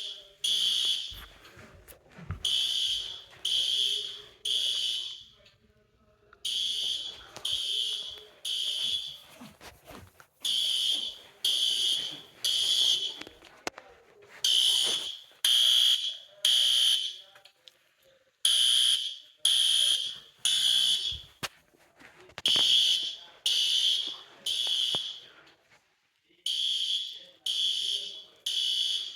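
Fire alarm horns sounding the temporal-three evacuation signal: three shrill blasts, a pause, then three more, repeating about every four seconds.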